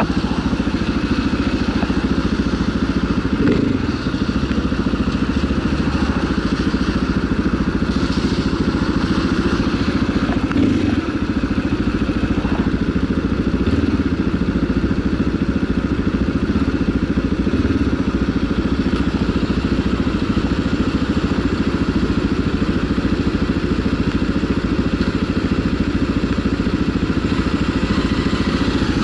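A Mondial RX3i Evo's 250 cc single-cylinder engine idling steadily with the motorcycle standing still.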